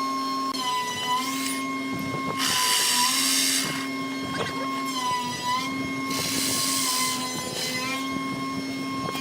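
Electric woodworking power tool running with a steady whine. Its pitch sags several times as it is loaded by cutting into wood, and loud hissing cutting noise comes twice.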